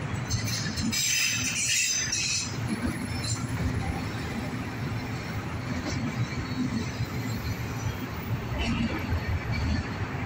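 Autorack freight cars rolling past on the rails, a steady rumble of steel wheels on track, with a brief high-pitched screech about a second in.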